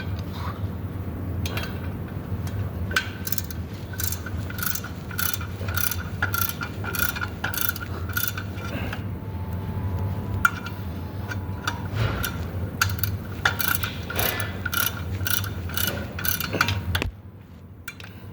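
Hand ratchet wrench clicking in steady strokes, about two a second, as a loosened bolt is backed out. It breaks off briefly near the middle and stops about a second before the end, over a steady low hum.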